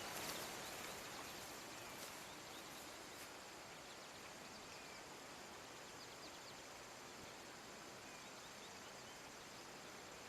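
Faint open-field ambience: a few footsteps swishing through wet grass that fade away in the first few seconds, then a steady low hiss with scattered faint high chirps.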